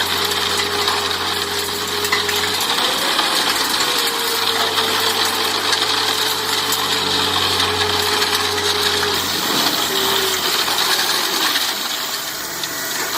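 4 m³ self-loading concrete mixer running on test: a steady machine noise with a whine that rises briefly about three seconds in and falls away near ten seconds, over a dense metallic clatter.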